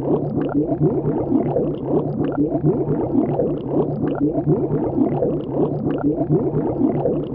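Underwater bubbling sound effect: a dense, steady stream of bubbles gurgling, with a low hum beneath.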